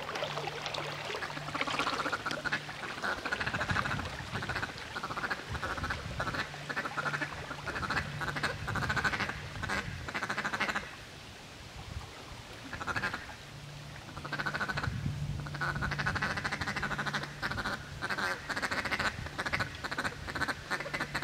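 Ducks calling in short, rapid series over and over, with a brief lull partway through. A low steady hum comes and goes beneath them.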